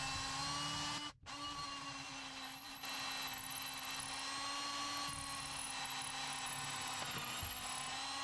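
Cordless drill running steadily with a long, thin pilot bit boring through wood. The bit is meeting something hard in the hole. The sound cuts off completely for a moment about a second in, then the drill runs on.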